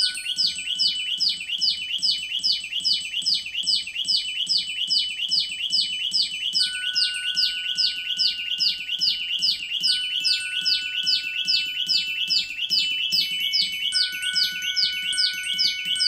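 A recorded bird chirping in a rapid, even series of short falling notes, about three or four a second, with a few glockenspiel notes struck with mallets now and then and left to ring over it.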